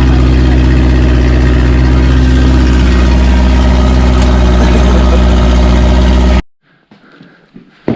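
A loud engine running steadily at an even speed, which cuts off suddenly about six seconds in, leaving only faint quiet ambience.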